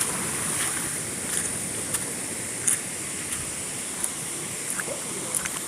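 Steady rushing of a jungle waterfall, with a few faint scattered clicks.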